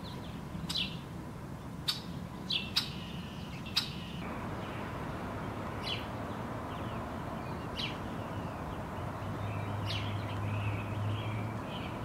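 Small birds chirping: about eight short, sharp chips at irregular intervals over steady outdoor background noise.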